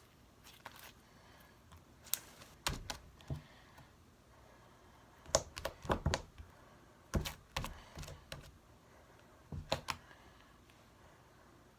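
Homemade glossy, slightly sticky slime being squeezed and pulled by hand, giving short clusters of sharp clicks and pops every couple of seconds.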